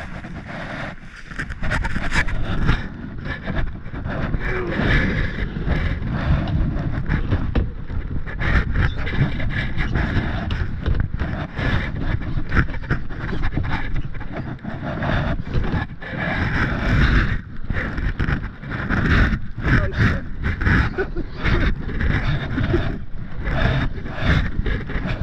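Kayak paddle strokes splashing and dripping in shallow river water, with irregular knocks and sloshes against the plastic hull. Wind rumbles on the microphone underneath.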